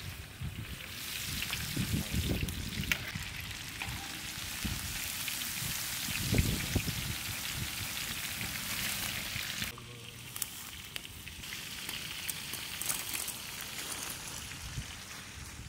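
Chicken pieces coated in crushed Doritos deep-frying in hot oil in an iron kadai: a dense, steady sizzle, with a few knocks of the slotted ladle against the pan. About ten seconds in, the sizzle cuts off abruptly, leaving quieter sound with light clicks.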